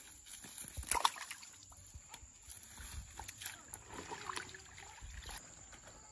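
Pond water splashing and sloshing as a wet net full of fish is worked by hand in shallow water, with scattered small splashes and clicks; the sharpest comes about a second in.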